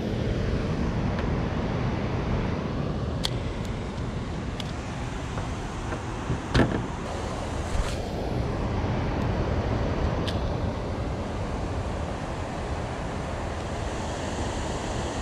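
Steady rush of water pouring below a dam. A few light clicks and one sharper knock come through about six and a half seconds in.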